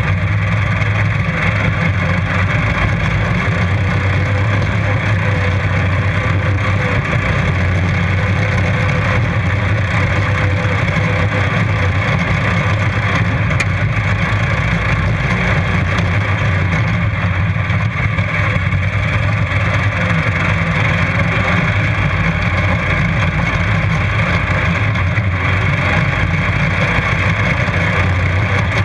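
Racing ride-on lawn mower engines running steadily under power, heard close up from a camera mounted on one of the mowers.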